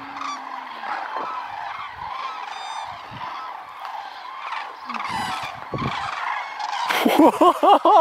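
A huge flock of migrating birds calling all at once as it takes flight: a dense, continuous chorus of many overlapping calls, with a few louder, closer calls near the end.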